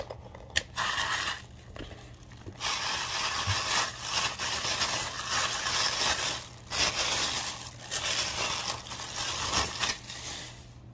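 A thin plastic bag crinkling and rustling as it is handled and opened, in several long stretches with short pauses between.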